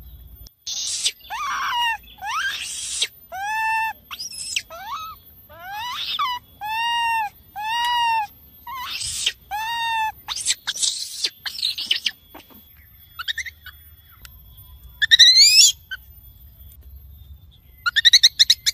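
Baby macaque calling for its mother in a rapid series of shrill cries. Arched, rising-then-falling coos alternate with harsher screams for about twelve seconds. After a pause, a single loud scream comes near the end, followed by a quick flurry of calls.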